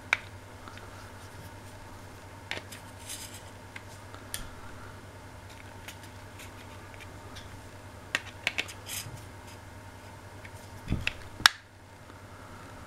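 Scattered light clicks and taps from the plastic case and display assembly of a partly stripped Fluke 175 multimeter being handled, with one sharp click about eleven and a half seconds in, over a faint steady low hum.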